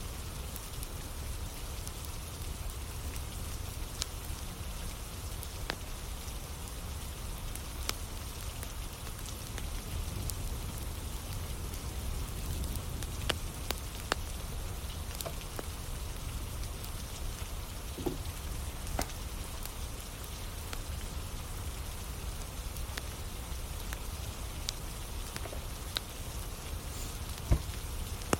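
Steady rain falling, with scattered sharp pops and crackles from a burning wood campfire.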